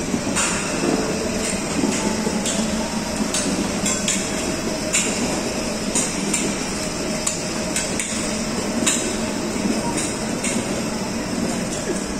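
Child's battery-powered ride-on toy car driving on a tiled floor: a steady hum from its small electric motors with the rattle of its hard plastic wheels, and irregular sharp clicks and knocks throughout.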